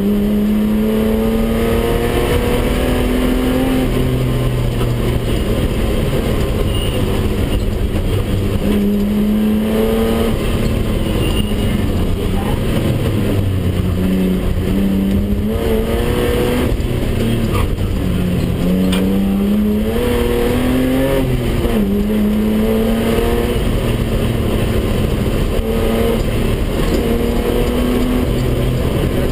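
BMW 320/6's straight-six engine heard from inside the cabin, driven hard: the engine note climbs under acceleration and drops sharply at each gear change, several times over, over a steady road and cabin noise.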